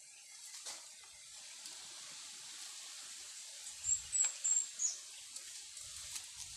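Four short, high-pitched chirps about four seconds in, the last sliding down in pitch, typical of a small bird calling. Under them a steady high hiss and a few light snaps of twigs and leaves as the branches are handled.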